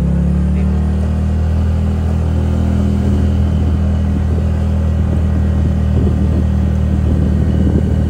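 Honda Vario automatic scooter's single-cylinder engine running at a steady cruising speed: a low, even drone, with wind and road rumble on the microphone growing rougher in the second half.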